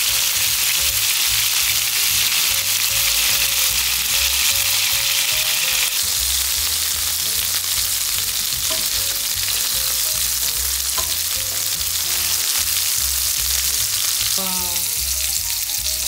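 Beef tteokgalbi patties sizzling steadily in a frying pan of oil and water as the water cooks off over high heat.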